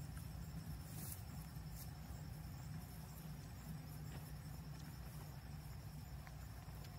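Faint outdoor background: a steady high insect drone over a low constant hum.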